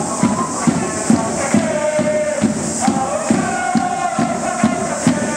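Crowd of football supporters singing a chant together over a steady drum beat, about two to three beats a second.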